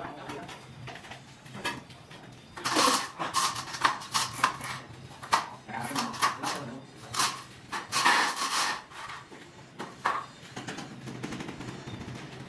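Tile-laying work: tools and ceramic tiles scraping and knocking against a tiled floor, in a busy run of sharp clatters and scrapes from about three seconds in until about ten seconds in.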